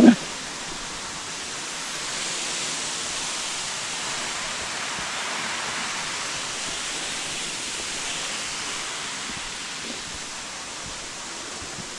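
A waterfall's falling water making a steady, even rush, a little louder from about two seconds in. A brief short sound at the very start.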